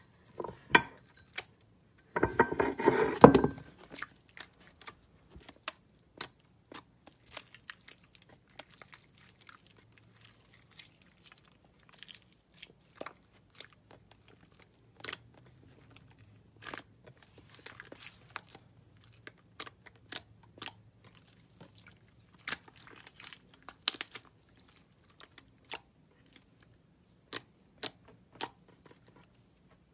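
Thick slime being worked by hand: sticky clicks and small pops scattered throughout as fingers press and pull it, with a longer, louder squelching stretch about two seconds in.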